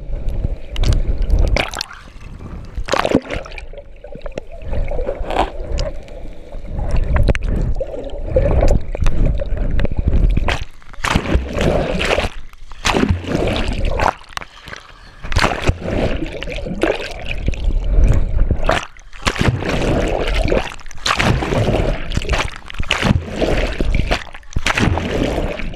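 Sea water splashing, sloshing and gurgling around a GoPro held in the water, in irregular bursts, with swimmers kicking close by.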